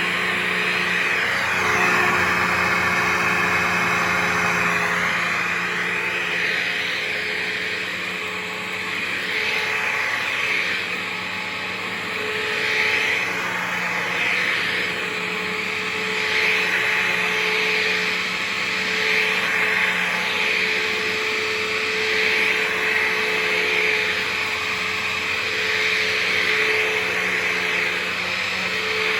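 Dirt Devil Vision Swivel Glide upright vacuum cleaner running steadily on a low-pile rug. Its motor hum sits under a strong airy whoosh that swells and eases slightly as it is pushed back and forth.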